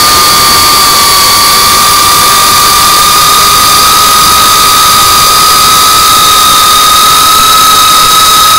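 GEPRC CineLog35 3.5-inch FPV drone's brushless motors and propellers in flight: a loud, steady high whine that creeps slowly up in pitch, over a rush of air noise.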